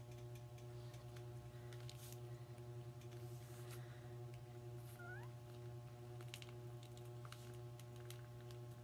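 Faint clicks of small plastic action-figure parts being handled as the figure's peg-mounted hands are pulled off and swapped, over a steady low electrical hum. A short rising squeak comes about five seconds in.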